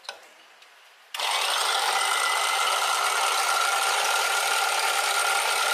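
Electric hand mixer switched on about a second in, then running steadily with a constant whine as it beats eggs and sugar in a bowl.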